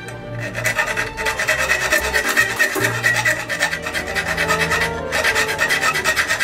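A hand file rasping back and forth along the edge of a small piece of thin sheet metal in quick, continuous strokes, with a brief pause about five seconds in.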